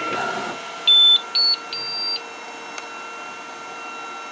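Flashforge Adventurer 5M 3D printer sounding a three-beep alert, a short lower tone then two higher ones, the last the longest, signalling that the print has finished. A steady hum runs underneath.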